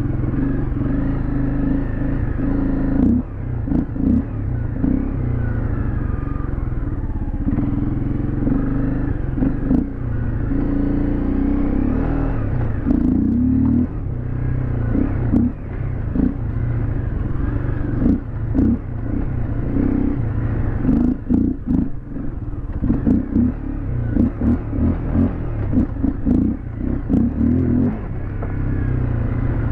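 Fuel-injected dirt bike engine running at low speed, the throttle blipping on and off in short bursts, with clattering from the bike over rough ground. The rider finds this bike runs badly and calls it poorly tuned.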